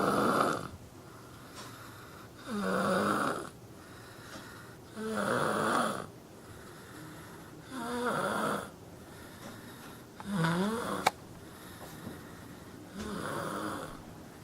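A sleeping boy snoring in a slow, even rhythm, one snore about every two and a half seconds. A single sharp click comes about two-thirds of the way through.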